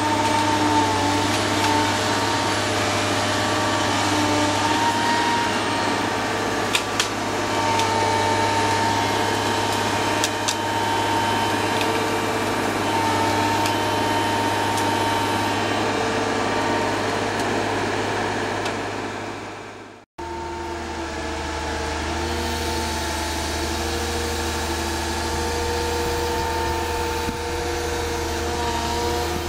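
Heavy machine's engine and hydraulics running steadily with a constant hum. About two-thirds of the way through it fades out, then a similar steady run picks up again with a deeper hum.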